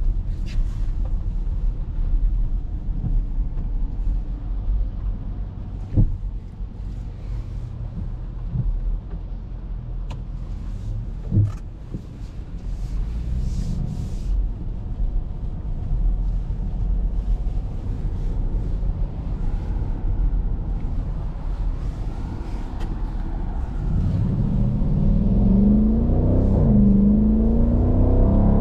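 Dodge Durango R/T's 5.7-litre Hemi V8 and tyre noise on a wet road, heard from inside the cabin: a steady low rumble while cruising in traffic, with a couple of sharp knocks. In the last few seconds the engine note climbs as the SUV accelerates hard onto the highway.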